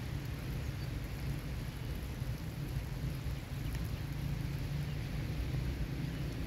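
Steady outdoor background noise: a low rumble with a light hiss over it, with no distinct events.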